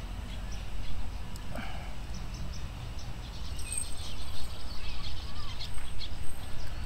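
Outdoor ambience: a steady low rumble with faint, scattered bird chirps and insect calls.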